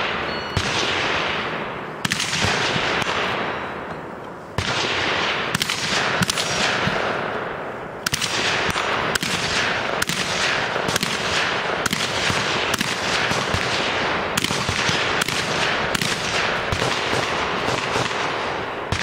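A competitor's gun firing a rapid string of shots, each trailing a long echo. A few shots come in the first half, then steady fire at about two shots a second from about eight seconds in.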